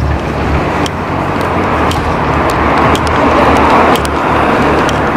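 Steady city street traffic noise: a continuous low rumble with hiss, swelling slightly a few seconds in.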